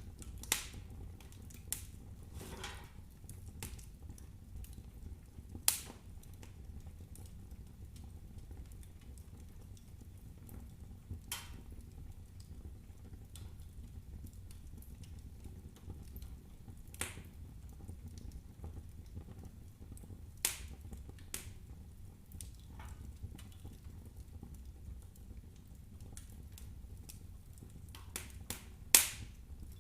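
Wood fire burning in a fireplace: scattered sharp crackles and pops from the burning logs over a steady low rumble. The loudest pops come about six seconds in, about twenty seconds in, and near the end.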